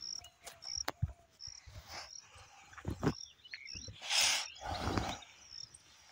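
A tethered cow set loose to run across grassland: its hooves thud and its rope drags and rustles through the grass, with a few brief rushing bursts of noise. A short high chirp repeats about once a second in the background.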